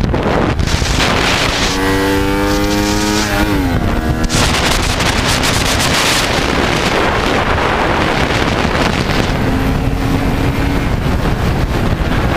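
Onboard sound of a small-capacity race motorcycle at speed: heavy wind buffeting on the microphone, with the engine note showing through in patches. The engine pitch drops sharply about three and a half seconds in, then holds a steady tone.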